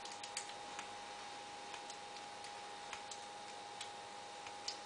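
Light, irregular metal clicks and ticks as a part of a KJW M700 airsoft rifle is turned loose with an Allen key, the sharpest click near the end, over a faint steady hum.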